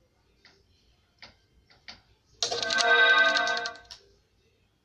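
Slime being squeezed and worked by hand: a few faint clicks and pops, then a loud, buzzing squelch about a second and a half long, like trapped air being forced out.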